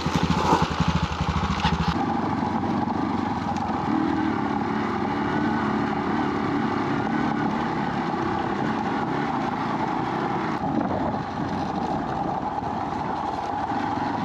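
Dirt bikes riding on trails: a motorcycle engine passes close by in the first two seconds, then a motorcycle engine runs steadily as heard from on the bike, with road and wind noise.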